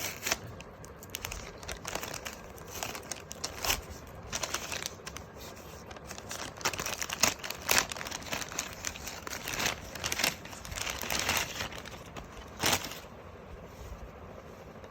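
Takeaway food packaging, a paper bag and box from KFC, being handled and opened: irregular rustles and crinkles that stop about thirteen seconds in.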